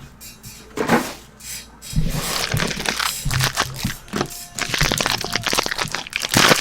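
Plastic and foil card-pack wrapping crinkling and tearing as trading card packs are opened. There is a brief rustle about a second in, then dense, continuous crinkling from about two seconds on.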